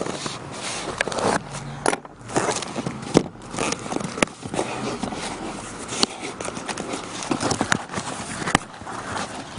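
Packing tape being torn off a cardboard shipping box by hand and the box flaps pulled open: irregular tearing, scraping and crackling with scattered sharp clicks.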